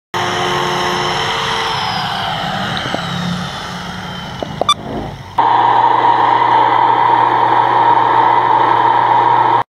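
Handheld angle grinder running free, its pitch sliding down as it slows, with a few knocks near the middle. About five and a half seconds in it gives way abruptly to a drill press running steadily while drilling mounting holes in a plastic hood scoop.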